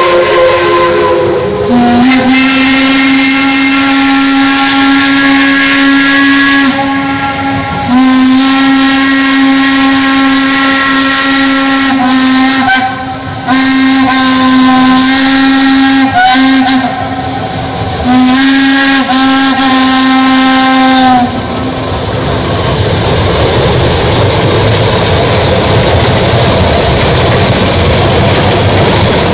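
Lima Shay geared steam locomotives blowing their steam whistles: a falling note at first, then a long steady blast lasting about twenty seconds, broken by a few short gaps. After that comes the loud, even exhaust noise of the three engines working past.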